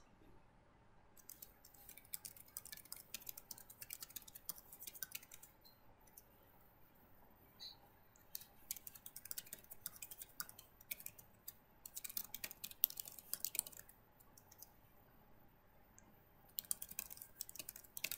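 Faint computer keyboard typing in about four quick bursts of keystrokes, with short pauses between them.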